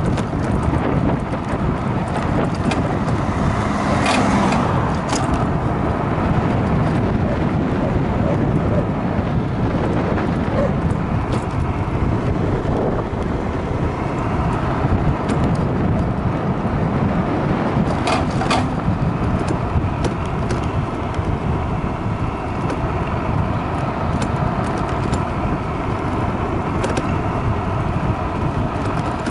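Wind buffeting the microphone and road rumble from an electric scooter riding along a paved village road: a steady low rush, with a few short clicks about four and eighteen seconds in.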